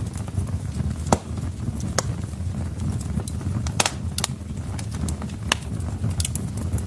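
Wood logs burning in a fireplace: irregular sharp crackles and pops about once a second, the loudest about a second in, over a steady low rumble.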